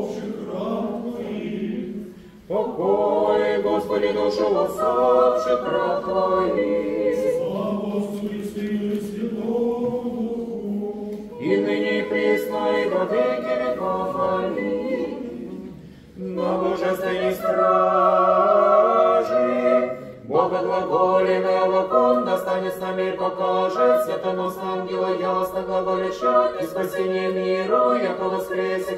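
Unaccompanied Orthodox church choir singing a memorial-service chant in several phrases, with short breaks between them and a low note held under the melody.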